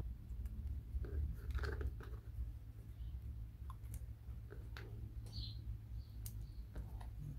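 Faint, scattered small clicks and taps of thin laser-cut wooden model parts: tiny wooden wheels being handled and pushed onto wooden axle pegs, over a steady low hum.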